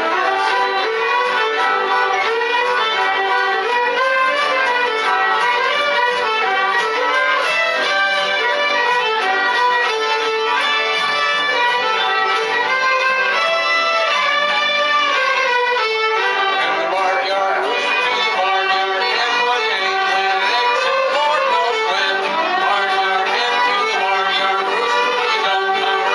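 Group of children and adult tutors playing a bluegrass tune together on fiddles and acoustic guitars, the fiddles carrying the melody over strummed guitar chords without a break.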